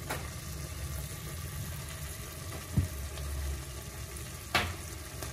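Chicken sizzling faintly in an open steel pressure cooker over a gas burner, with a steady low rumble under it. A dull thump comes a little under three seconds in, and a sharper knock about four and a half seconds in.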